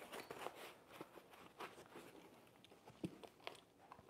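Near silence, broken by a few faint rustles and small clicks of foam packaging being handled and pulled off a new e-bike's frame.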